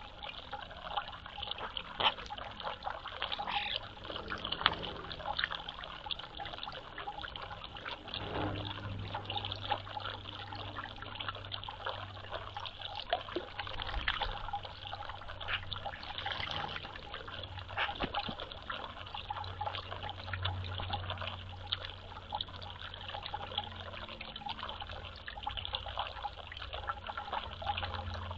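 Water trickling and splashing steadily, with many small irregular drips and clicks. A low steady hum comes in about a third of the way through.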